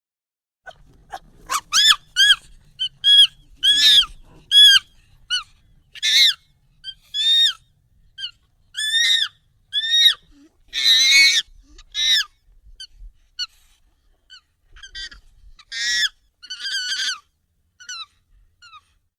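Monkey calls, sped up and pitched high: a run of short, high calls, each rising and falling in pitch, one after another. A longer, rougher scream comes about eleven seconds in.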